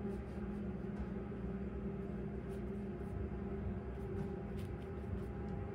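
Steady room hum with a low rumble, and a few faint soft ticks of a paintbrush dabbing acrylic paint onto canvas.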